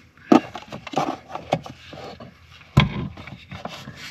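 Clicks, rattles and knocks of an ARB twin air compressor unit being handled and set into place under a vehicle seat. There is a sharp knock shortly in and a heavier low thump near three seconds in.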